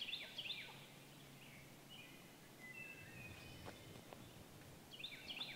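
Faint birdsong over quiet outdoor background noise: one bird repeats quick, down-slurred chirps, near the start and again from about five seconds in, and thin high whistled notes come in between.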